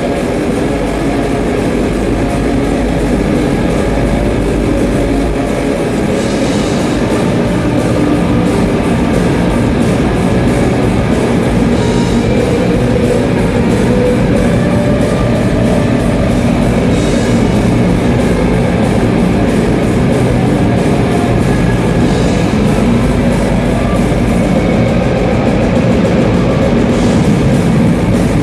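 Death metal band playing loud and without a break at a soundcheck: heavily distorted electric guitars and bass through the stage amps.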